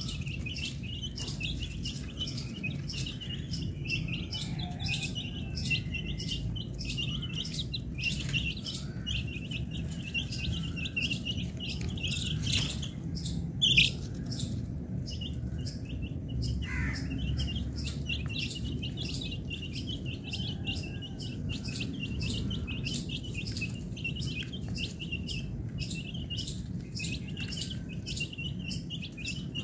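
A flock of baby chicks peeping without pause, many short high cheeps overlapping, with one louder peep about halfway through.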